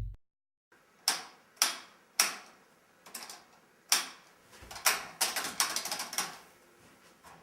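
A series of sharp clicks and knocks, at first three single strikes about half a second apart, then a faster run of clattering clicks that dies away near the end.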